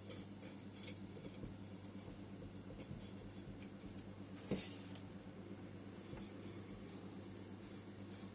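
Quiet handling sounds of potting a plant in a ceramic pot: a few light clicks near the start and one brief scrape about four and a half seconds in, over a steady low hum.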